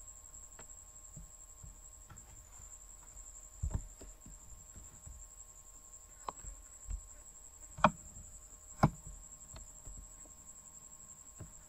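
Computer mouse clicks: a handful of separate sharp clicks a second or more apart, the loudest two about a second apart near the middle. Under them is a faint background hiss with a steady high-pitched whine.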